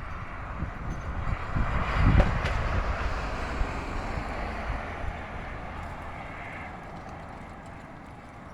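Strong wind gust in a snow squall, rushing and buffeting the microphone; it builds to a peak about two seconds in, then slowly dies down.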